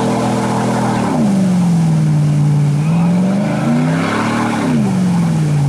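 Lifted Chevrolet Silverado Z71 pickup's engine revving under load, its tires spinning and churning muddy water in a clay rut: the truck is bogged. The revs hold high, drop about a second in, rise briefly just before four seconds, then fall again.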